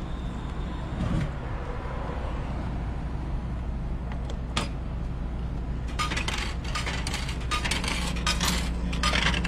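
Coins clinking in a quick, irregular run of small metallic clicks starting about six seconds in, over a steady low hum.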